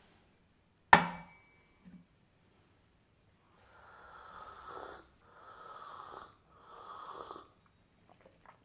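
A sharp clink of tableware with a brief ring about a second in. Then three long, airy slurps as hot green tea is sipped from a small cup.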